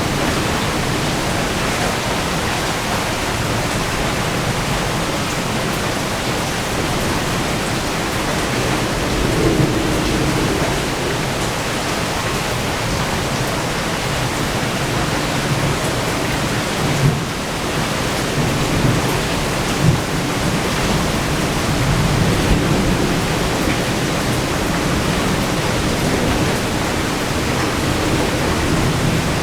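Heavy rain falling steadily in a thunderstorm, a constant hiss, with low rumbles of thunder swelling about a third of the way in and again around three quarters through, and a couple of brief low thuds past the middle.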